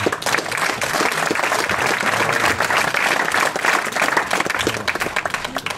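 An audience applauding with steady clapping, which thins out and stops near the end.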